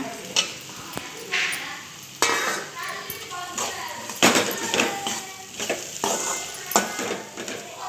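Boiled bitter gourd slices tipped from a steel bowl into a metal pan of frying masala, then stirred in with a perforated metal spatula. The masala sizzles under repeated scrapes and clinks of metal on the pan.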